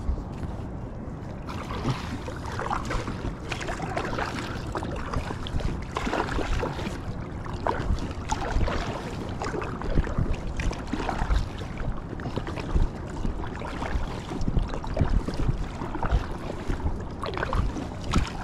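Water splashing and lapping around a small inflatable kayak or packraft, with irregular short splashes and a low rumble underneath.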